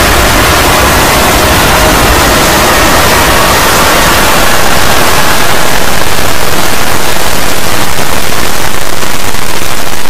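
Deliberately over-amplified, heavily distorted digital noise like loud static. Faint tones show through it at first and fade, and it gets a little louder about halfway in.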